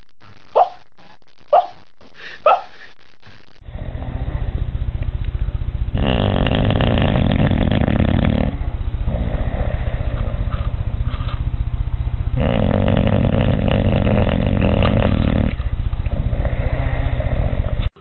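A sleeping puppy gives three short, high whimpering yips. Then a sleeping bulldog snores loudly with a rasping, rattling sound, its breaths coming in long swells, two of them louder than the rest.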